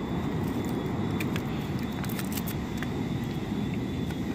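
Dry driftwood sticks clicking and knocking lightly as they are handled and laid into a campfire pile, over a steady low rumble.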